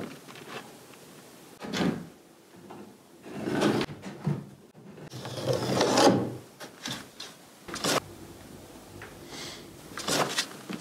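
OSB board scraps being slid and shuffled into place: a series of wood-on-wood scraping rubs of about a second each, the longest and loudest about six seconds in, with a sharp knock about eight seconds in.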